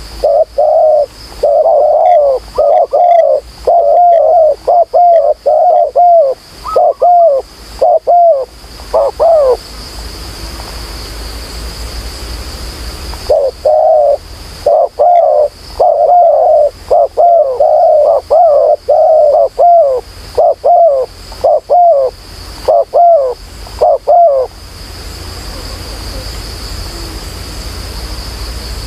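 Spotted doves cooing: a rapid series of coos in two bouts of about ten seconds each, with a few seconds' pause between them. A steady high hiss runs underneath.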